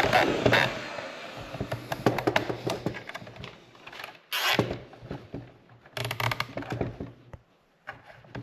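Irregular clicks, knocks and scraping of something being handled. There are two short, louder rushes of noise, about four and six seconds in.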